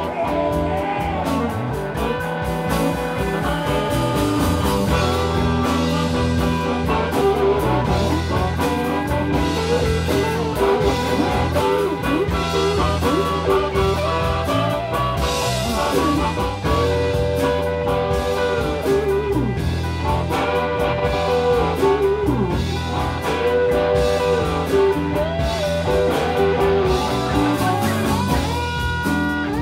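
Live blues band playing an instrumental passage: an electric guitar lead with bent, sliding notes over bass and drums.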